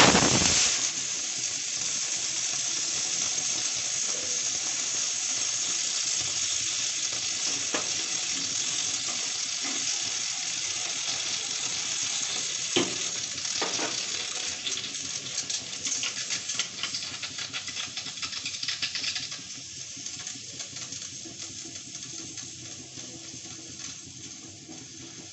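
Aluminium pressure cooker on a gas flame releasing pressure. A loud blast of steam bursts from the weight valve right at the start, then a steady hiss follows with crackling and sputtering as starchy froth boils out around the vent. About three-quarters of the way through it drops to a fainter hiss.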